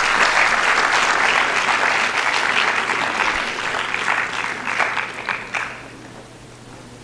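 Audience applauding, a dense patter of many hands clapping that fades out about five or six seconds in.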